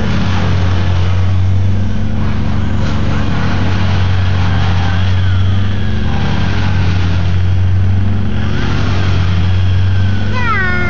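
An engine running steadily at a constant speed, giving a low, even hum.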